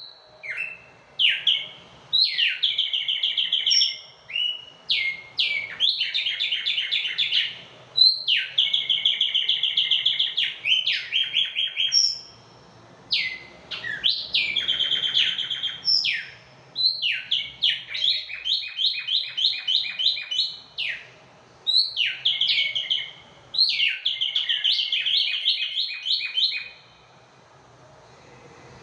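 Caged tumbayegua songbirds singing: phrase after phrase of fast trilled notes, each phrase one to three seconds long, with short pauses between and a longer pause near the end.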